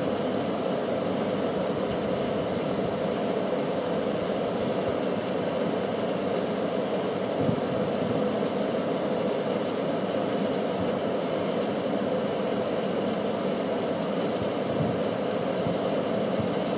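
A steady, low rumbling noise with no distinct fireworks bangs, and one faint thump about seven and a half seconds in.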